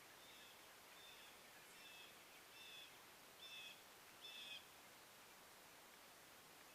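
A bird calling: six short call notes about one a second, growing louder, then stopping about four and a half seconds in. Faint, over a low steady hiss.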